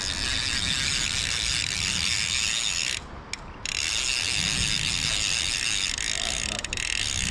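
Centrepin reel's ratchet check buzzing in a fast run of clicks as the spool turns. It breaks off for about half a second around three seconds in, then carries on.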